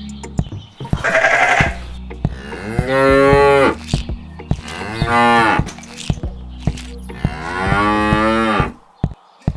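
A cow mooing three times, each moo about a second long, rising and then falling in pitch, over background music with a steady beat.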